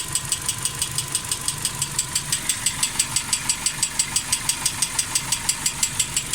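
Car engine idling with a rapid, even ticking from a hydraulic lash adjuster (lifter) knocking, a fault that sets in after about a minute and a half at idle after a drive.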